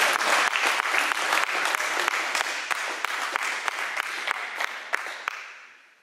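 Applause: spectators clapping after a table tennis point, a dense patter of claps that dies away about five seconds in.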